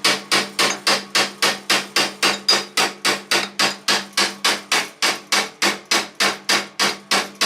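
Hammer tapping a 3/16-inch roll pin through the hole in a differential shaft on a John Deere snowthrower, in fast, even strikes about four to five a second.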